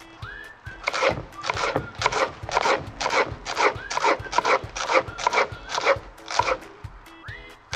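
Kitchen knife chopping a red onion on a cutting board, a steady run of strokes at about three a second that starts about a second in and stops near the end.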